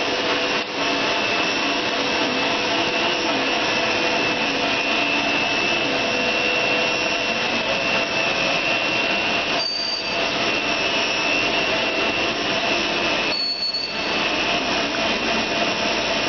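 Blown-film extrusion machine running: a steady machinery noise with a constant high whine over it.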